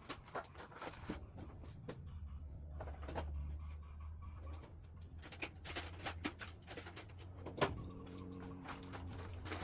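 Scattered clicks, taps and scraping as small metal parts and tools are handled while cleaning a grimy throttle body injector pod, over a steady low hum.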